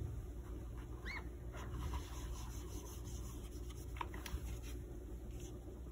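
Quiet wiping of a whiteboard with a tissue to erase a written letter, with a short high squeak about a second in and a few faint ticks.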